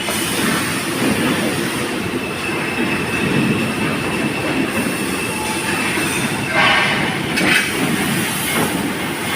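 Manual grinding machine running with a steady rumbling grind and a faint high whine, and two brief louder rasping bursts about two-thirds of the way through.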